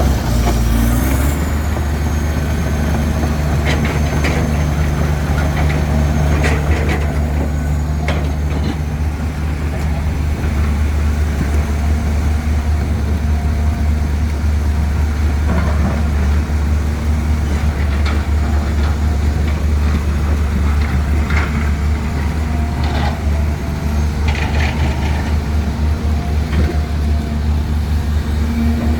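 Heavy diesel engine of earthmoving machinery running steadily under load, a deep continuous hum, with a few short knocks scattered through it.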